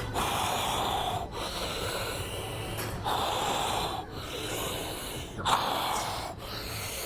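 A man breathing hard through a heavy set of barbell squats: forceful breaths about a second long, coming roughly every two seconds, over a low steady hum.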